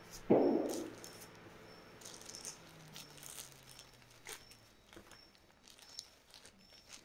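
Thin clear plastic bag crinkling and rustling as buns are packed into it by hand, with scattered sharp crackles. One dull thud just after the start is the loudest sound.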